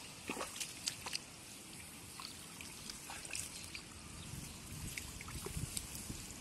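Shallow muddy paddy water splashing and trickling as bare feet wade and a hand digs into the mud, with scattered small wet clicks and dribbles.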